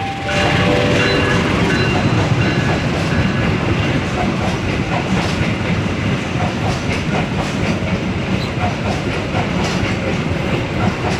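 Argo Parahyangan passenger train running straight through the station without stopping, a steady loud rumble of the passing carriages with wheels clicking over the rail joints.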